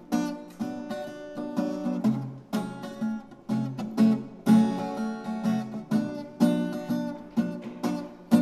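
Acoustic guitar playing an instrumental passage, chords struck in a steady rhythm about twice a second.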